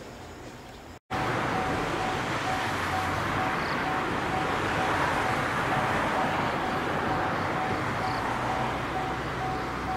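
Japanese railway level crossing warning bell ringing, a single electronic ding repeated at an even quick pace, which signals an approaching train. It starts about a second in, over a steady background rush.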